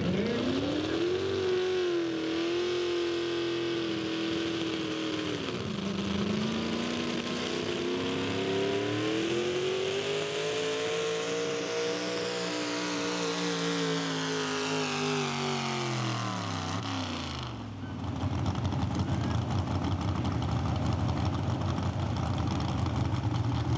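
A Ford pro stock 4x4 pulling truck's engine runs at full throttle hauling a pulling sled. The revs climb at launch and hold, dip briefly about six seconds in, climb again, then fall steadily as the pull winds down. After an abrupt change near the end, the engine idles with a steady low rumble.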